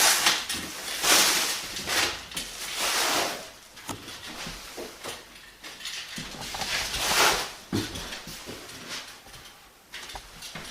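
Fibreboard underlay panels being slid and scraped across a wooden subfloor as they are laid, in several swishing scrapes about a second long, with light knocks between them.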